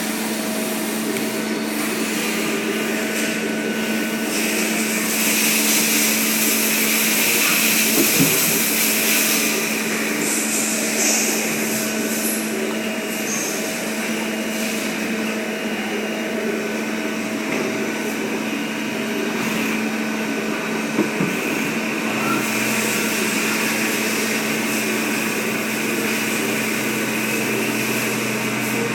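CNC lathe running: a steady mechanical hum with a constant drone under it, and a hiss that swells and fades several times. There is a short knock about eight seconds in and another about twenty-one seconds in.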